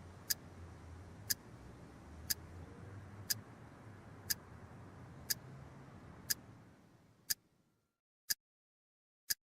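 A clock ticking evenly, once a second, ten ticks in all, over a low background hum that fades out about three-quarters of the way through, leaving the ticks alone in silence.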